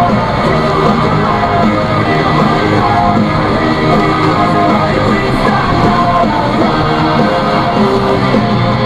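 Rock song with guitar and singing playing on the car radio.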